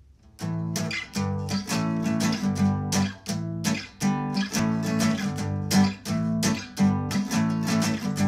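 Intro music of acoustic guitar strumming chords in a steady rhythm, starting about half a second in.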